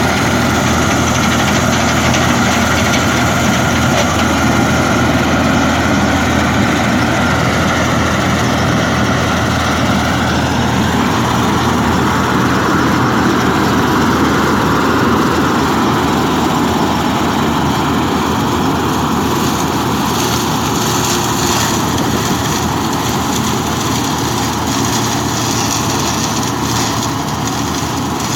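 Rice combine harvester running steadily under load, its engine and threshing machinery making a continuous loud drone with a whine on top that shifts in pitch about eleven seconds in.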